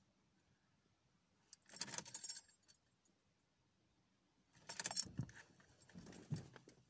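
Car keys jangling on their ring in a Ford Focus's ignition lock, in two short bouts of clicks and rattles about three seconds apart, as the ignition is switched off and back on.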